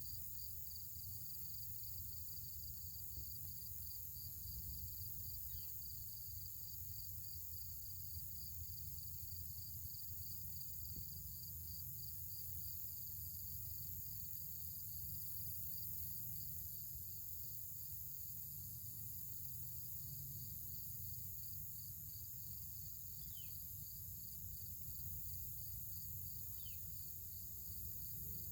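Insects trilling steadily in a fast pulsing rhythm over a low rumble, with a few brief high falling chirps here and there.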